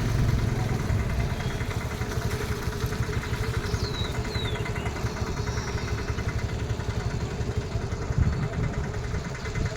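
An engine running steadily at low revs, with a fast, even pulsing.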